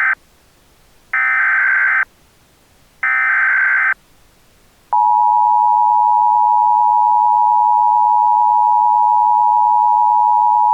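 Emergency Alert System tones. The end of one burst and then two more bursts of digital SAME header data tones, each about a second long, are followed after a short gap by the steady two-tone EAS attention signal, which starts about five seconds in and holds.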